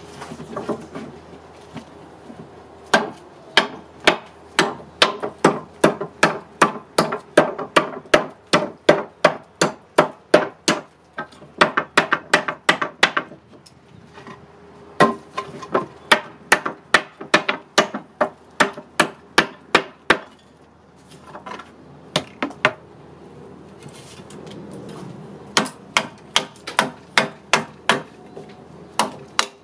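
Nessmuk-pattern knife chopping into a wooden board: quick runs of sharp blade-on-wood strikes, about two a second. The chopping pauses briefly about halfway and for several seconds later on.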